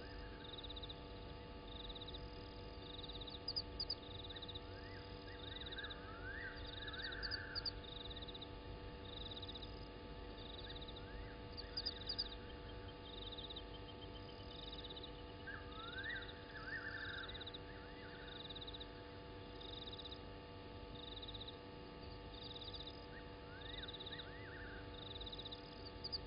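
Night chorus at a bushveld waterhole. A high-pitched call pulses just over once a second throughout, and groups of short rising calls come every few seconds. A few brief high clicks are heard, over a steady low electrical hum.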